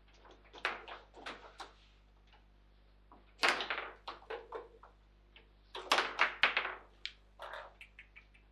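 Table football (foosball) in play: hard plastic knocks and clacks as the ball is struck by the player figures and the rods are worked. They come in quick runs of several knocks, loudest about three and a half and six seconds in.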